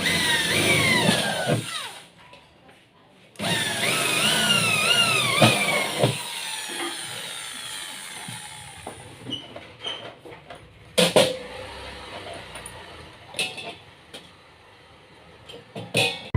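Electric drill run in two bursts, its motor whine falling and wavering in pitch as the trigger is worked, followed by a few sharp knocks.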